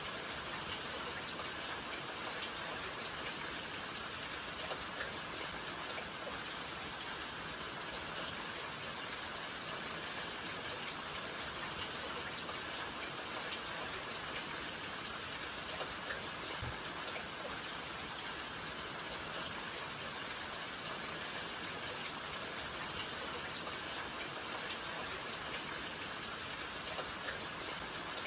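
Steady rain: a dense, even hiss of falling rain with scattered individual drop ticks.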